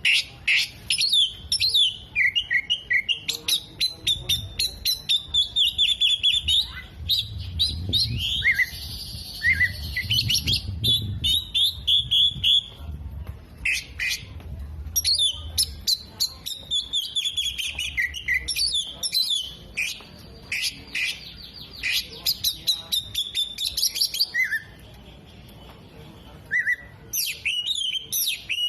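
Oriental magpie-robin singing loudly, a fast, varied run of sharp chirps, rattling trills and short gliding whistles. The song breaks off briefly near the end, then resumes.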